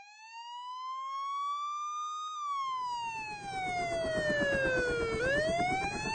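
Siren wailing in long slow sweeps: the pitch rises for about two seconds, falls for about three, then rises again. A steady rushing noise comes in under it about two and a half seconds in.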